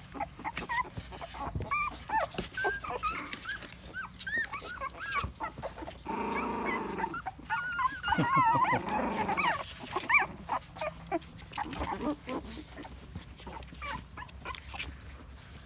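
Young puppies, eyes newly opened, whimpering and crying in many short high squeaks, with a denser, lower stretch about six seconds in that may be a growl.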